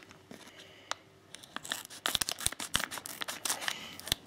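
A thin plastic Lego minifigure blind-bag packet being torn open and crinkled in the hands. Scattered crackles and rustles, busiest in the second half.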